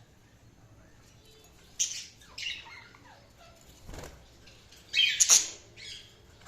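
Pet budgerigars giving short, harsh chirps in scattered bursts after a quiet start, the loudest cluster about five seconds in, with a soft thump about four seconds in.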